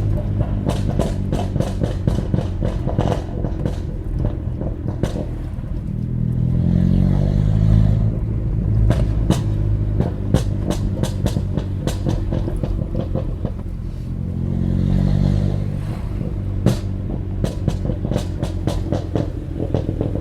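2005 Vauxhall Astra VXR's 2.0-litre turbocharged four-cylinder running at low revs through a straight-piped, decatted, non-resonated turbo-back exhaust. It pops and crackles rapidly on the overrun. The revs swell up and back down twice, about six and fourteen seconds in, with bursts of pops between.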